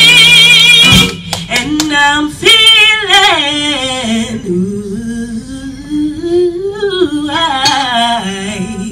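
Big band holding a loud sustained chord that cuts off about a second in, then a female singer's unaccompanied ad-lib vocal run with heavy vibrato, sliding up and down in pitch.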